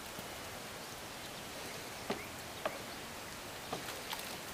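Quiet outdoor background hiss with a few faint, light knocks, from a car-wash brush being handled against a plastic bucket.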